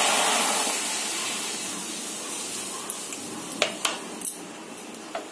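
Milk hissing and sizzling as it is poured into a hot frying pan on a gas burner. The hiss is loudest at first and dies away over a few seconds, with a few light clicks near the end.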